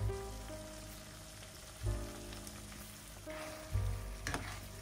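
Soft background music, a new low note about every two seconds, over spaghetti in tomato sauce sizzling in a nonstick frying pan. Near the end a spatula stirs and scrapes the pasta through the pan.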